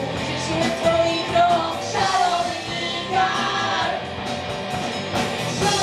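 A live rock band playing: a girl sings into a microphone over electric guitar and drums.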